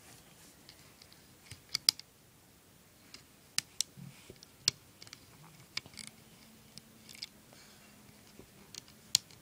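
Irregular sharp clicks and snaps of rubber bands being stretched over the plastic pegs of a rubber-band loom, with fingers tapping on the plastic.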